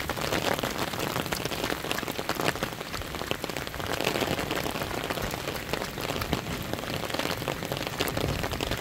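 Rain falling steadily on a wet paved road: an even hiss full of small drop taps.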